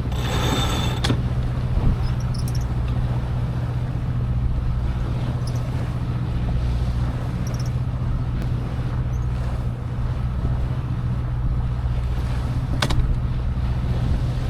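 A sailboat's inboard engine running steadily under way, a low even drone, with water and wind noise over it. A brief rush of noise comes at the start and a single sharp knock near the end.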